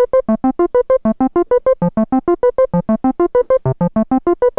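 Donner B1 analog bass synthesizer running its arpeggiator, stepping through held notes as short, evenly spaced staccato notes, about five or six a second, in a repeating pattern of pitches.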